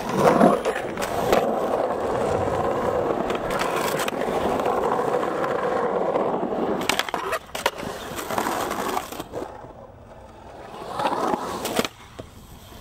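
Skateboard wheels rolling over a concrete bowl, a steady rumble, broken by a few sharp clacks of the board about halfway through. The rolling fades to quiet, then builds again near the end.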